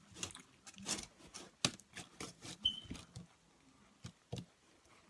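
Close-up eating sounds from a burrito: irregular wet clicks and smacks of chewing and mouth noise.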